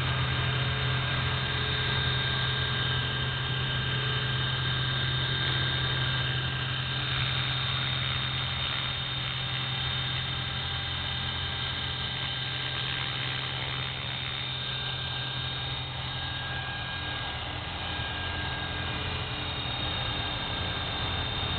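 EXI 450 electric RC helicopter hovering: a steady rotor drone with a high, constant motor and gear whine over it.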